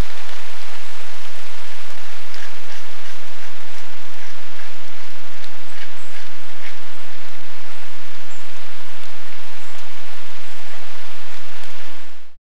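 Steady hiss like light rain, with faint scattered ticks through the middle; it fades out near the end.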